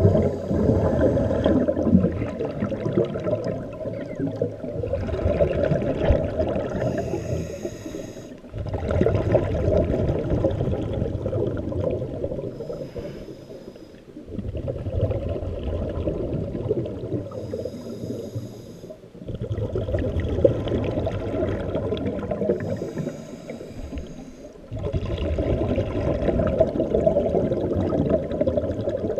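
Scuba diver breathing through a regulator, heard underwater. There are about five slow breaths, each a brief hissing, slightly whistling inhale followed by several seconds of bubbling exhaust bubbles.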